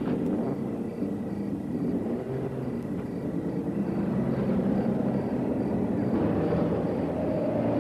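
A car driving off with its engine running, over a steady low rumble of traffic.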